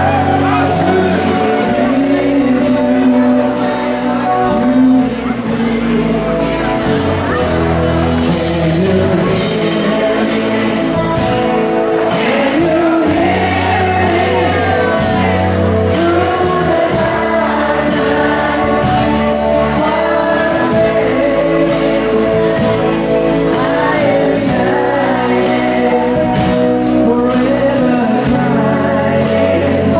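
Live country band playing, with a woman singing over acoustic guitar and mandolin and a steady beat.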